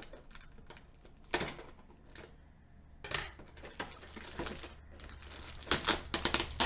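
Plastic packaging crinkling and clicking in short, irregular bursts as pieces are pulled out of a figure's box, with a sharper clack about a second and a half in and a quick run of crackles near the end.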